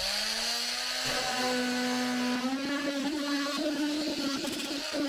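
Milwaukee cordless oscillating multi-tool running and cutting into a clear plastic shower faucet handle. Its pitch climbs as it comes up to speed in the first second, then it holds a steady buzz with a rough rasp of the blade on the plastic.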